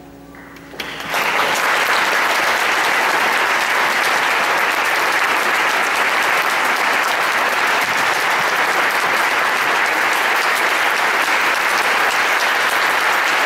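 The last notes of a grand piano die away, then an audience bursts into loud, steady applause about a second in.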